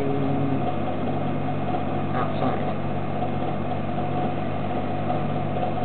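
A steady low hum that holds unchanged throughout, with a single spoken word about two and a half seconds in.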